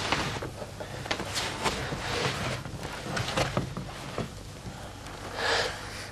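Fabric rustling and soft shuffling as two people shift on the stairs, push a blanket aside and hug, in several short hissy bursts with faint knocks.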